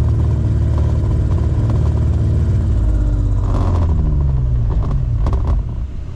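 A self-launching glider's retractable engine and propeller running at climb power with a steady low drone. About three and a half seconds in its pitch slides down, and near the end it falls quieter as the engine is throttled back before being stowed.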